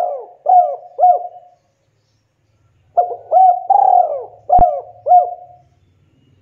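Spotted dove cooing: a phrase of repeated hooked coos that fades out about a second and a half in, then a second phrase of coos from about three seconds in. A single sharp click sounds in the middle of the second phrase.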